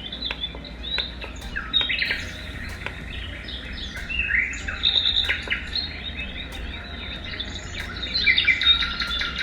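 Birdsong nature track playing from a Dreamegg bedside sound machine: many quick bird chirps and twitters over a steady low hum.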